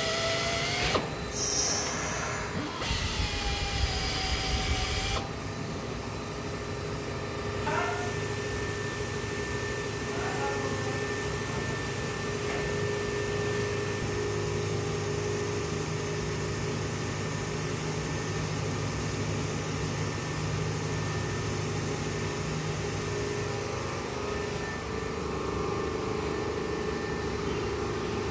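Hand-held pneumatic tool working on the bore of a cracked cast iron cylinder liner during a metal-stitching repair. It is rough and uneven for the first few seconds, then runs more steadily with a constant whine.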